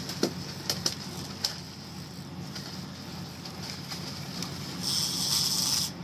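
A dolphinfish (mahi-mahi) splashing and thrashing at the surface beside the boat, over the steady low hum of the idling boat engine. A few sharp clicks come in the first second or so, and about five seconds in a louder burst of splashing spray lasts about a second.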